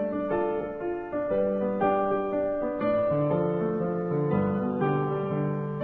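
Background instrumental music: a keyboard melody of changing notes over held low chords.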